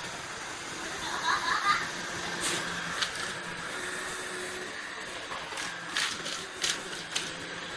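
Panasonic MC-SR540G vacuum cleaner running with a steady whir. A brief warbling squeak comes about a second in, and a few sharp clicks are heard.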